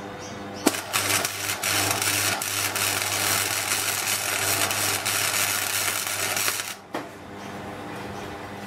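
MIG welder plug-welding the steel engine cross member into the car body. The arc crackles steadily from just under a second in and stops after about six seconds.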